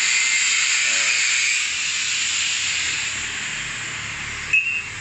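Steady loud hiss of a gas cutting torch working on a scooter frame, easing off after about two seconds. A short sharp clink with a brief high ring about four and a half seconds in.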